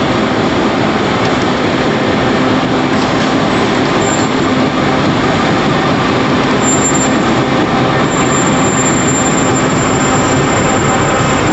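Lead-edge-feed four-colour corrugated board printing machine running at production speed: a steady, loud mechanical din with a faint whine.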